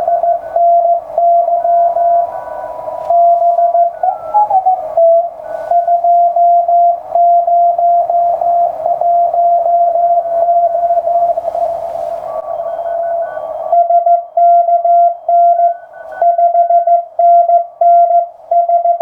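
Morse code (CW) heard through a ham radio transceiver, a Ten-Tec Century/21: a single steady tone near 700 Hz keyed on and off in dots and dashes. Fainter signals at other pitches and band hiss sit behind it, and the hiss drops away about three-quarters of the way through.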